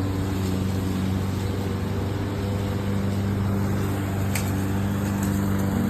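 A steady low machine hum with a hiss over it, even and unchanging, like a running motor or engine.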